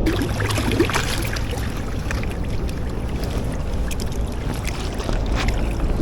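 Wind buffeting the microphone as a steady low rumble, with scattered short clicks and rustles of handling over it.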